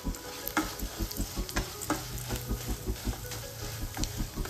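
Cashews, almonds, split moong dal and white sesame seeds sizzling in hot ghee in a steel kadai, stirred with a wooden spatula that scrapes across the pan in several strokes.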